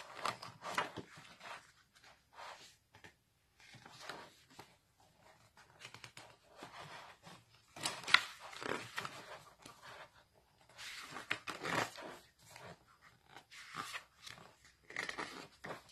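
Glossy pages of a thick photobook being turned one after another, the paper rustling and flapping, with one sharp snap about eight seconds in.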